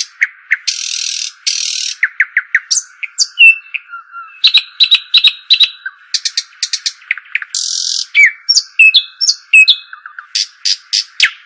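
Calls of small songbirds known in Arabic as dakhal: quick runs of sharp chirps, about five a second, broken by short buzzy notes and brief trills, over and over.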